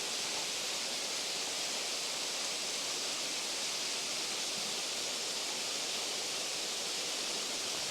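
Steady, even hiss of water running over rocks at a small waterfall with only a trickle of flow.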